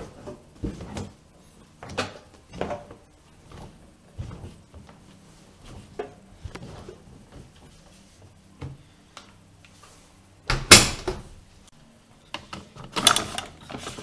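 Bauknecht WAK 5750 G washing machine being handled: a run of irregular clicks and knocks, with a loud bang about ten and a half seconds in and another burst of knocks near the end.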